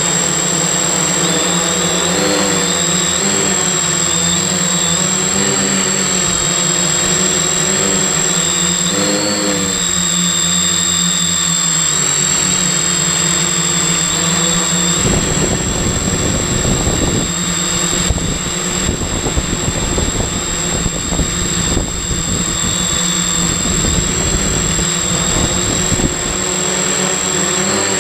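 Multirotor drone's electric motors and propellers buzzing in flight, heard close up from a camera on the frame, with the pitch wavering as the throttle changes and a constant high-pitched whine over it. From about halfway through, rough low rumbling from wind on the microphone joins in.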